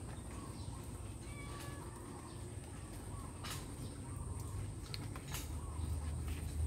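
Outdoor ambience with a few faint bird calls, a steady high-pitched insect drone, and a low rumble that grows louder near the end.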